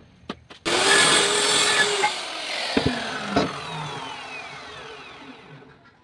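Stanley circular saw running, then switched off and coasting down: a falling whine that fades away over about five seconds. Two sharp knocks come near the middle.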